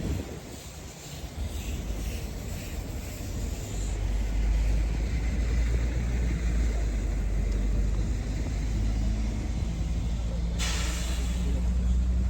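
Heavy vehicle's engine running with a steady low rumble that swells about four seconds in, then a sudden hiss of released air from its air brakes near the end.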